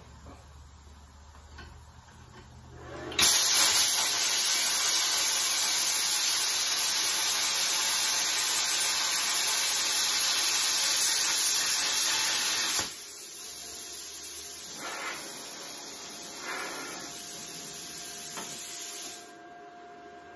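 Budget air plasma cutter cutting steel at 20 amps: a loud, steady hiss of the arc and air jet for about ten seconds. The arc then cuts out abruptly, and a softer air hiss carries on for several more seconds before stopping, typical of the torch's post-flow cooling air.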